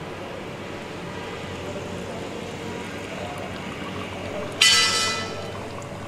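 Expobar espresso machine dispensing: a steady low hum, then about four and a half seconds in a sudden loud hiss as hot water bursts from the group head, easing within half a second into water running into the cups.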